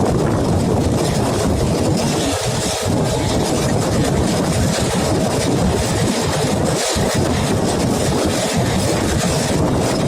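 Passenger train running along the track: a steady, loud rumble of wheels on rails.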